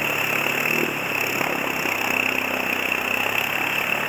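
Steady rush of a fast, swollen river, with a quad bike's engine running underneath.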